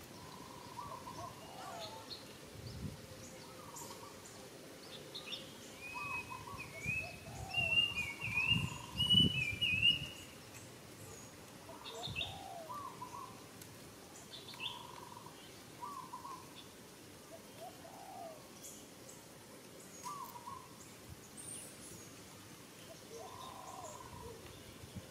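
Birds calling: a short call repeated every second or two, with a higher warbling song for a few seconds near the middle. Several low thumps come in the same stretch as the song, which is the loudest part.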